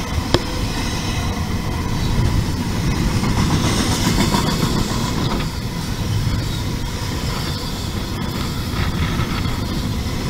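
Double-stack intermodal container well cars of a freight train rolling past close by: a steady rumble of steel wheels on rail, with a sharp click about a third of a second in.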